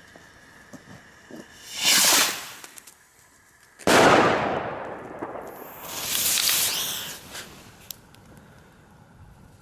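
A single loud firecracker bang about four seconds in, its echo dying away over a second or two. Before and after it comes a swelling, fading hiss.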